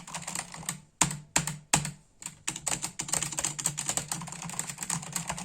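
Typing on a Corsair K70 RGB MK.2 mechanical keyboard with Cherry MX Silent switches: a few separate keystrokes, then fast continuous typing from about halfway in. The keys clack loudly for switches sold as silent, which the owner finds not very silent.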